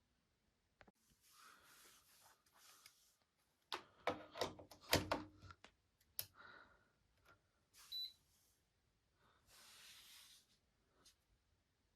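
Quiet handling sounds: scattered clicks and knocks with soft rustling, and a quick run of sharper clicks about four to five seconds in.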